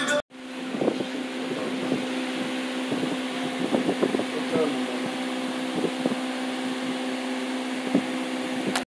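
Electric floor fan running steadily with a low hum, close by, with a few soft knocks and rustles from handling.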